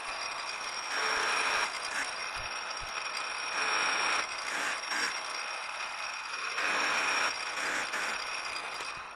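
A metal lathe running with a steady high whine while the cutting tool turns down a metal workpiece. The hiss of the cut swells louder several times as the tool feeds. The sound cuts off abruptly at the end.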